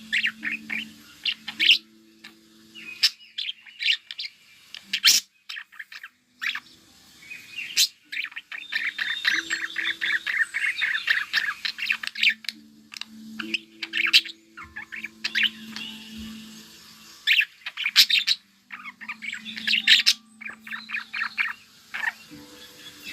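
Pet budgerigars chattering and warbling: quick chirps throughout, thickening into long stretches of continuous warbling in the middle.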